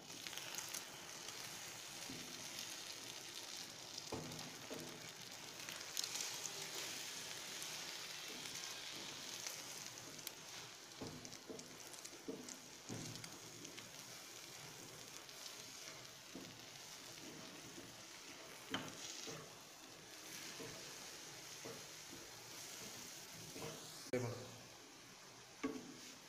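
Egg and milk mixture sizzling in butter in a hot frying pan as a wooden spatula stirs and scrapes it into scrambled eggs, with a steady hiss and scattered short scrapes and knocks of the spatula against the pan.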